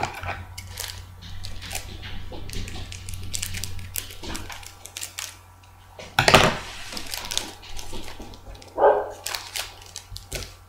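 Crinkling and tearing of a foil trading-card packet being opened: many short sharp crackles. Two louder sudden sounds come about six and nine seconds in.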